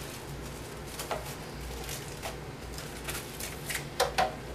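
Clear plastic wrap crinkling and rustling as it is pulled and pressed over a headlight lens, in scattered short crackles, the loudest about four seconds in.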